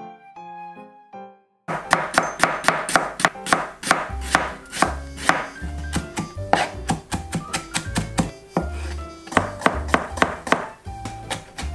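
Chef's knife rapidly mincing onion and pickles on a cutting board: quick, even chops about six a second, beginning a little under two seconds in. Soft background music plays underneath.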